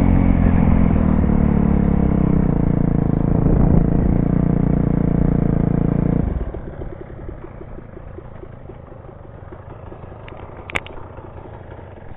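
Dirt bike engine running under way, then the engine note falls away sharply about six seconds in to a much quieter, steady idle. A single sharp click comes near the end.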